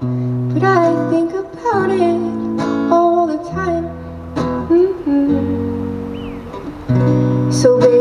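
Live acoustic guitar strumming chords while a woman sings. The singing stops for a couple of seconds past the middle while the guitar rings on, then comes back near the end.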